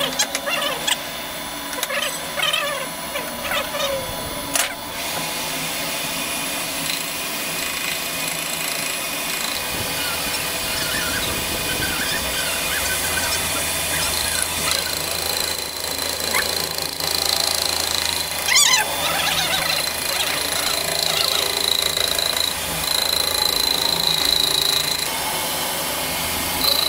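Metal clinks and knocks as a chuck key tightens the lathe chuck on a steel atta chakki bearing cup, then the metal lathe starts up with a steady hum about ten seconds in. From about halfway on, the lathe tool cutting the spinning cup gives off a high squeal that comes and goes.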